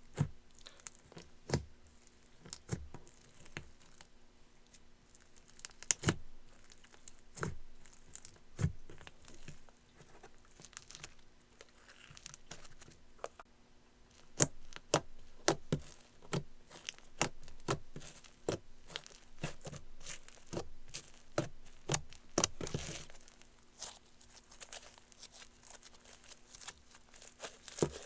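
Slime being squeezed, stretched and folded by hand, making irregular sharp pops and clicks with crackly, sticky stretching between them.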